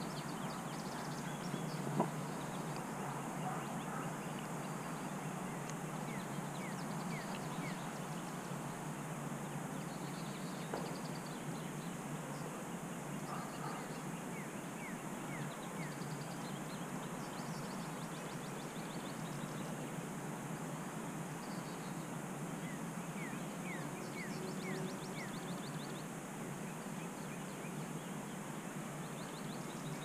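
Steady outdoor background hush with small birds chirping in short runs of quick notes every few seconds, and a single click about two seconds in.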